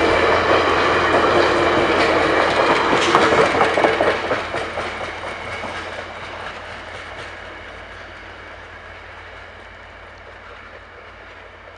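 Passenger train's stainless-steel cars rolling past, wheels clicking over the rail joints, then the sound fades steadily from about four seconds in as the train moves away.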